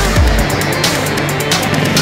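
Background music: a hard-hitting electronic track with a steady beat, its deep bass dropping out about half a second in.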